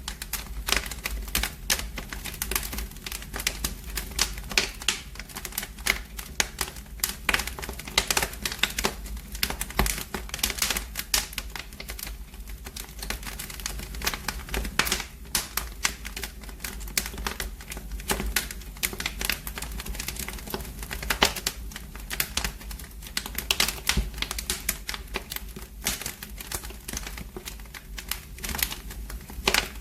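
Wood fire crackling in a fireplace: dense, irregular snaps and pops over a low steady rumble.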